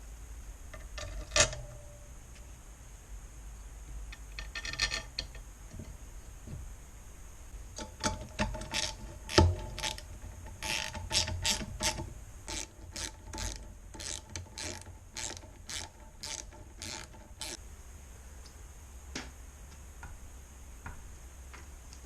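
Metal hand-tool clicks and knocks in quick runs through the middle stretch, with one sharp knock about a second and a half in.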